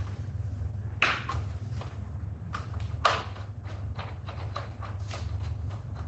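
Clicks and knocks of hands tightening the cover screws on a BLDC ceiling fan's metal motor housing: two sharper knocks about one and three seconds in, then a run of lighter irregular clicks, over a steady low hum.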